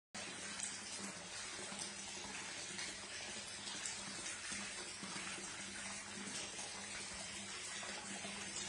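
Steady rush of running water splashing into an indoor above-ground pool, with a faint low hum underneath.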